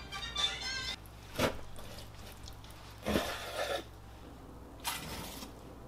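Background music that stops about a second in, then a few separate short knocks and scrapes of a chef's knife cutting fish fillets on a wooden cutting board.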